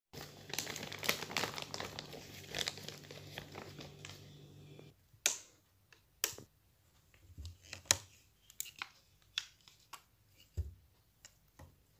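A dense crackling hiss with a low hum that stops abruptly about five seconds in. It is followed by a string of separate sharp clicks and taps from a plastic water bottle being handled and its cap twisted off and set down.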